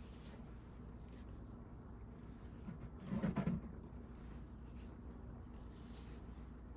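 A leather splitter blade being rubbed by hand on an abrasive to sharpen it: soft scraping strokes that come and go, with one brief louder low sound about three seconds in.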